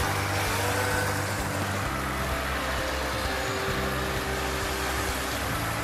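City street traffic at an intersection: cars and motor scooters driving through, a steady hum of engines.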